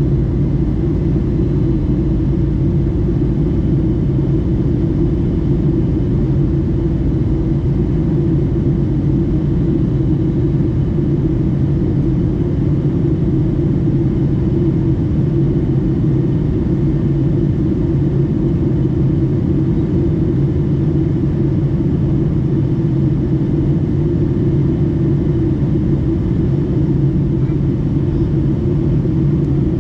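Boeing 757-200 in flight: a steady low drone of jet engines and airflow that holds constant, with no changes in power.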